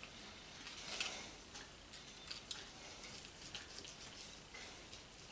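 Faint, irregular clicks and scrapes of a knife trimming small bone pieces out of a raw bone-in pork roast on a metal sheet pan.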